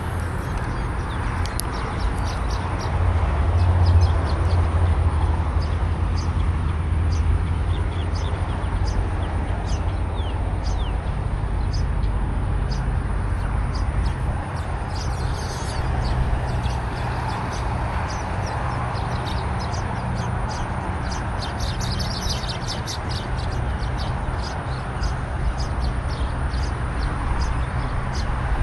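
Birds chirping in many short, repeated calls over a steady low rumble, with a thin, steady high-pitched tone behind them.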